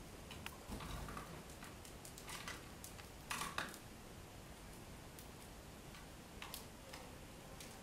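Scattered short ticks and clicks from small cage birds moving about a cage, with a louder cluster about three and a half seconds in.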